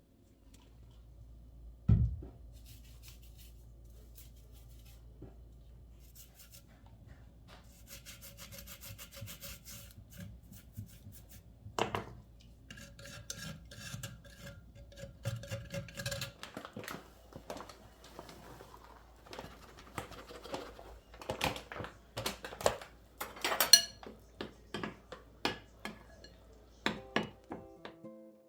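Hands-on work sounds: rubbing and scraping with scattered knocks and clicks, over a steady low hum that stops about halfway through. The clicks grow busier toward the end.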